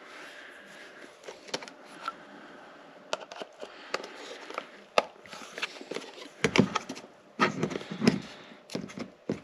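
Small clicks, taps and scrapes from hands working the chrome bezel and glass of a 2001 Harley-Davidson Springer speedometer back onto its plastic housing, with a few louder knocks in the second half; the bezel is not yet catching.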